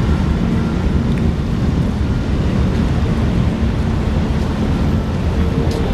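Wind buffeting the microphone in a steady low rumble, with a faint hum of outboard-powered rescue boats running across the water under it.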